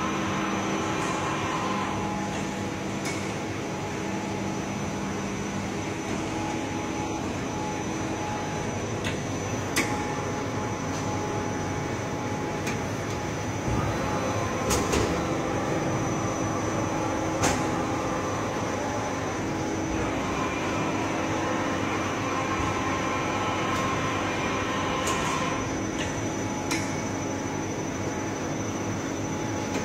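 Daewoo Puma 12L-B CNC turning centre running under power: a steady mechanical hum with a few sharp clicks scattered through.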